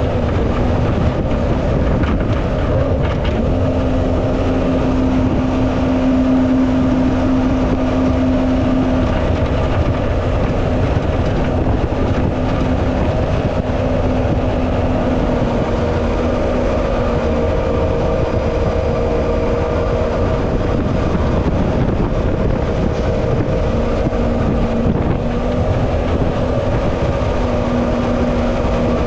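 Jet boat engine running steadily at speed under the rush of river water and wind, its pitch shifting slightly a few times.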